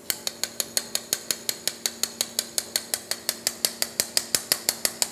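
Surgical mallet tapping a push-in suture anchor's inserter to drive the anchor into a pilot hole in the bone: quick, even taps, about six a second.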